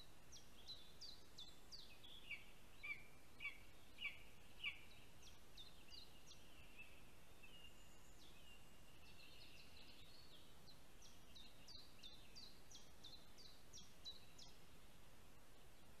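Faint songbird song: repeated phrases of short, high, quick notes over a steady hiss. Five louder notes come about half a second apart, roughly two to five seconds in.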